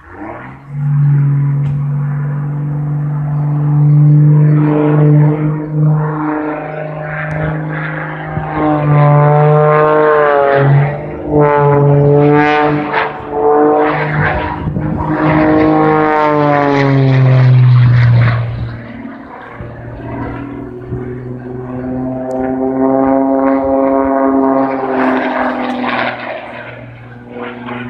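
Piston engine and propeller of an aerobatic monoplane, a loud drone whose pitch rises and falls again and again as the plane climbs, rolls and dives, with a drop in pitch about two thirds of the way through.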